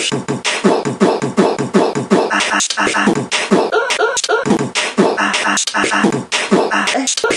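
Beatboxing: a person's mouth sounds (clicks, hisses and short hummed notes) chopped and spliced into a fast, rhythmic beat.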